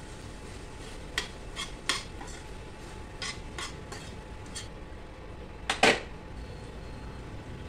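A spoon clinking and scraping against a steel pan while stirring thick gravy: a run of light clinks, then a louder clatter about six seconds in.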